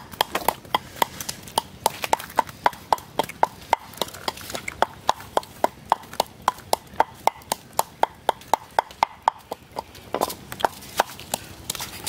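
A steady train of sharp, hollow clicks, about four a second, each with a brief ringing tone.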